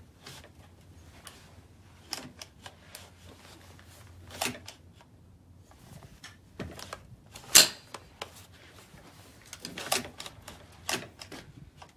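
Scattered sharp metallic clicks and clacks from a Rock River Arms .308 semi-automatic rifle being handled, its magazine being fitted into the magazine well. The loudest clack comes about seven and a half seconds in.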